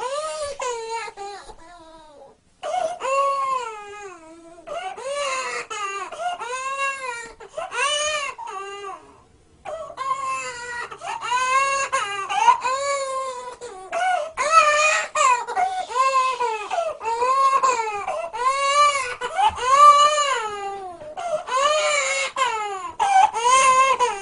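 A toddler crying in a steady run of wails, about one a second, each rising then falling in pitch. There are two short breaks for breath, one early and one about a third of the way through.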